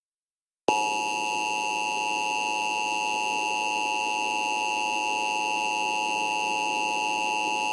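Emergency Alert System attention signal: a steady, harsh two-tone alarm (the 853 Hz and 960 Hz pair) sounding without change. It starts abruptly about three-quarters of a second in, after a short silence that follows the data header bursts, and announces the tornado warning.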